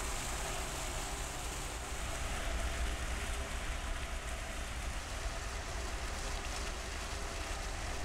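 Steady low rumble with an even rushing noise from a moving vehicle, heard from on board.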